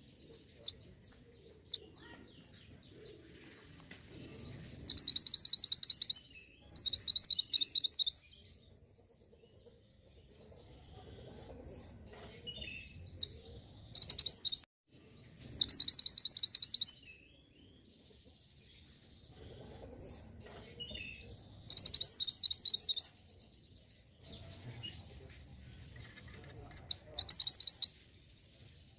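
Mantenan gunung bird song: short bursts of rapid, high trilled notes, each about a second long, repeated six times with gaps between them.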